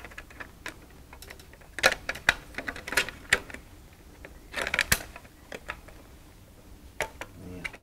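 Plastic cable cover pieces being snapped together by hand: a run of sharp plastic clicks and knocks, with louder clusters about two, three and five seconds in.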